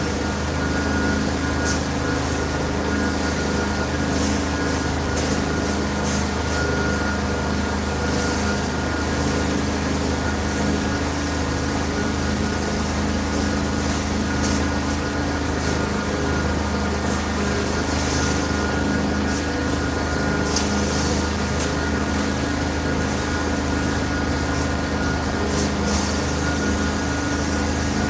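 Carpet-cleaning extraction machine running with a steady, unbroken drone: engine and vacuum hum with a constant whine over a rushing noise.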